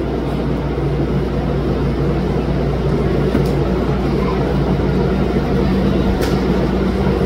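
A motor vehicle's engine running steadily, with a low rumble.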